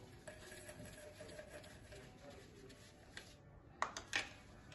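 Light metallic clicks and knocks from a compression tester's hose fitting being handled at the spark-plug wells of a Nissan QR25 engine: a faint click shortly after the start, another about three seconds in, then three sharp clicks in quick succession just before four seconds.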